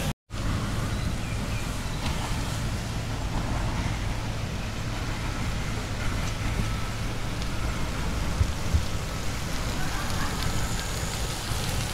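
Hot-spring geyser spouting a tall jet of near-boiling water, a steady rushing hiss with the spray pattering down.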